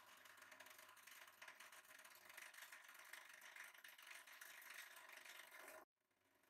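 A 150-ton hydraulic press running as its ram drives down, a faint steady rattling whir that cuts off suddenly about six seconds in, leaving a quieter hiss.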